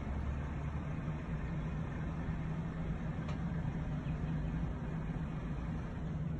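Electric motor of a boat's motorized sun shade running as the shade extends: a steady low hum.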